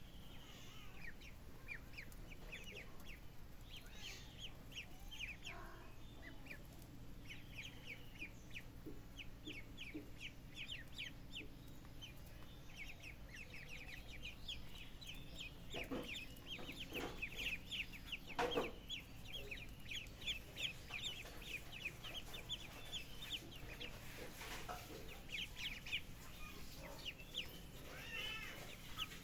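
Chickens calling, with near-constant rapid high-pitched peeping and a few louder, lower calls around the middle.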